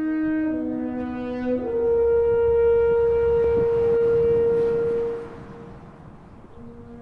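A horn-like wind instrument plays a few slow, stepped notes, then holds one long note that fades out about five seconds in. A lower note starts again near the end.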